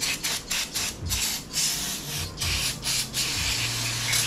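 Aerosol parts cleaner spraying, flushing old oil out of a camshaft phaser. It comes as a quick run of short hissing bursts, then longer sprays with brief breaks.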